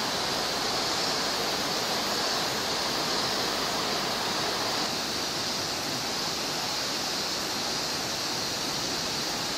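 Steady rushing of a shallow, rocky river flowing over stones.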